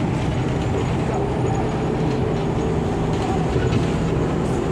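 Steady engine drone and road rumble heard inside a city bus under way.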